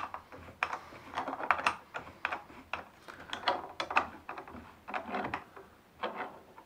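Hex key turned by hand in the hex socket of an M8 threaded coupling, driving the threaded rod of a home-made height adjustment on a Bosch POF 1200 AE plunge router: a run of irregular small metallic clicks and rattles as the key and rod turn.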